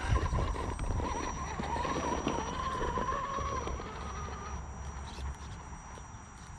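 1/10-scale Element RC Gatekeeper rock buggy crawling up rock: its electric motor and drivetrain whine, the pitch rising and falling with the throttle, over the tyres and chassis knocking and scraping on the rock. The whine fades about four and a half seconds in, leaving quieter knocks.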